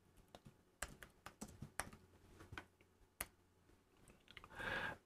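Faint computer-keyboard typing: a scattering of light, irregular key clicks as a short word is typed into a text field.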